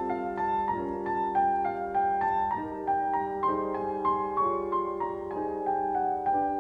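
Solo piano playing a classical piece: an even run of single notes, about four a second, over sustained lower notes.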